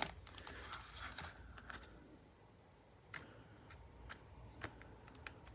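Faint, scattered clicks and soft rustling of trading cards being handled and flipped through one by one.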